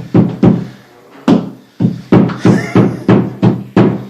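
Hammer striking a wall anchor being driven into a wall: a run of about ten sharp knocks, roughly three a second, with a short pause about a second in.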